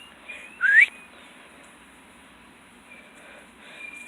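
A person gives one short rising whistle, about half a second in, calling a dog to come.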